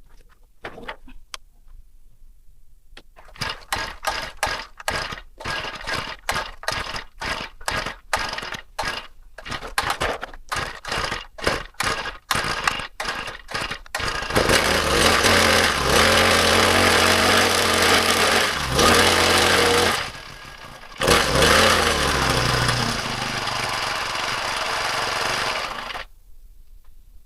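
Honda GX35 four-stroke brush-cutter engine firing in short bursts, about two a second, for some ten seconds, then catching and running steadily at high revs. It drops away for about a second, picks up again, and then cuts off suddenly near the end.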